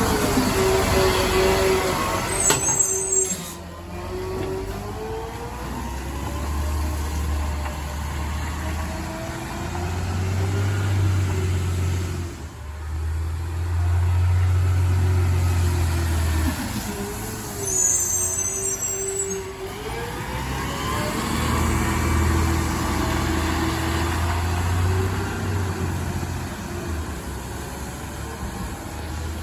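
Automated side-loader garbage truck at work: its diesel engine revs up and down in stages, with a hydraulic whine rising and falling as the arm cycles. Two short air hisses come, one a few seconds in and one about two-thirds through.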